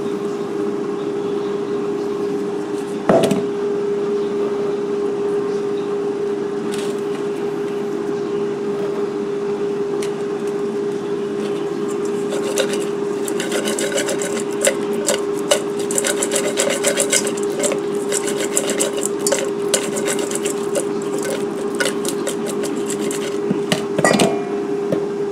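Hands tossing raw shrimp in oil and spice rub in a stainless steel mixing bowl: wet rubbing and scraping, with a knock about three seconds in and a long run of quick clicks and taps against the metal from about halfway through. A steady hum underneath comes from the air fryer preheating.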